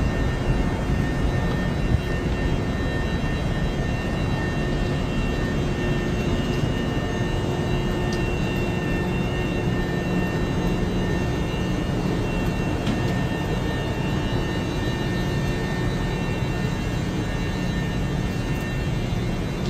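Steady running noise of an electric train heard from inside a passenger car: a continuous rumble with faint, steady whining tones over it.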